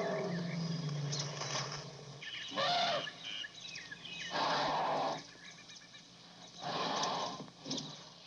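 Elephant sound effects: a low pitched call for about the first two seconds, then three short noisy blasts spaced a second or two apart, with faint chirps between them.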